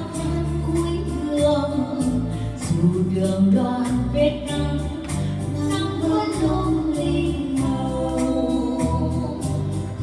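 Two women singing a duet through microphones, accompanied by an arranger keyboard playing a bass line and a steady beat.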